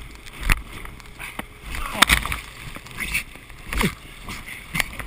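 Inflatable towed tube bouncing over a motorboat's wake: water rushes and sprays against it, broken by about five sharp slaps as it hits the waves.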